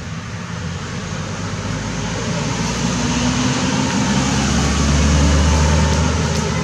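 A motor vehicle passing on a nearby road: a low engine drone that swells to its loudest about five seconds in, then begins to fade.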